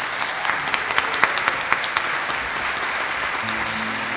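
Audience applauding, with a few sharp claps standing out in the first two seconds. Near the end, steady low instrumental notes come in as the music starts.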